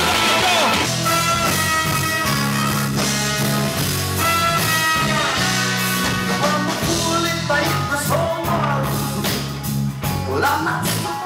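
Live rock band playing loud, with electric guitar, bass and drums; a voice comes back in near the end.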